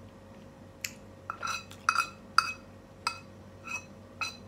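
Long metal spoon clinking and scraping against a stone-coated frying pan while soup is scooped from it: about eight sharp, ringing clinks at uneven intervals.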